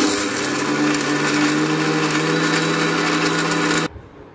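Electric mixer grinder running at full speed, grinding Oreo biscuits into powder. A loud, steady motor whine starts suddenly and cuts off just under four seconds in.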